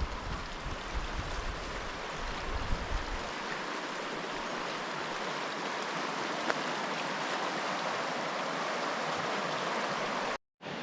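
River rushing: a steady, even wash of flowing water that grows a little louder as it goes on, with low thumps of wind on the microphone or handling in the first few seconds. The sound cuts out briefly near the end.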